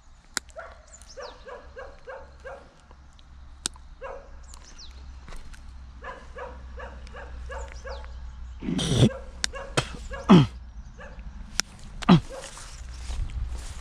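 A dog barking in quick runs of four or five barks, three runs in the first eight seconds, then three louder cries that slide down in pitch near the end. A few sharp clicks fall between them.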